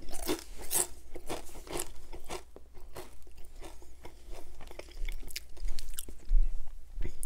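Close-miked chewing of crisp potato chips: irregular crunches and small mouth clicks.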